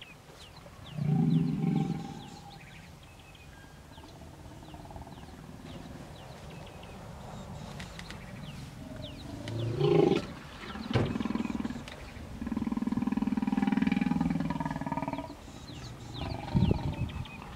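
Hippopotamus calling during a stand-off between hippos: deep, loud bellowing grunts in separate bouts. There is a short one about a second in, two around ten seconds, a long one of about three seconds from twelve seconds, and short ones near the end. Faint bird chirps sound between them.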